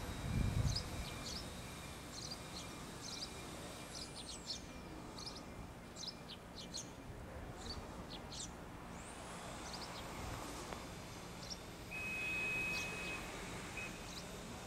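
Small birds chirping, short high calls repeated irregularly over steady outdoor background noise. A low thump comes right at the start, and a steady high tone lasts about a second near the end.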